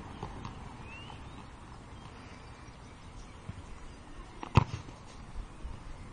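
Basketball bouncing on a hard outdoor court: a few soft knocks, then one sharp, loud bounce about four and a half seconds in.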